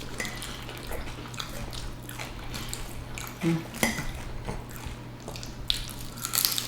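Quiet eating at the table: scattered light clicks and clinks of cutlery and dishes, with faint biting into chicken wings.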